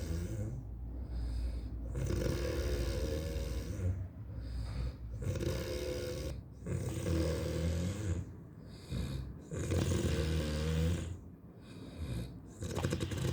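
Heavy snoring: a long, rattling snore about every two to three seconds, each lasting a second or two, with short breathing gaps between.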